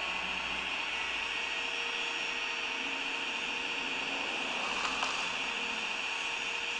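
Small electric motors of a radio-controlled 1/16-scale Bruder Caterpillar excavator whining steadily as it works, with a brief click about five seconds in.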